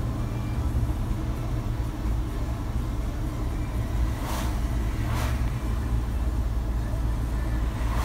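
Road noise heard from inside a moving car: a steady low rumble of engine and tyres. Two oncoming vehicles swish past on the wet road a little over four and five seconds in.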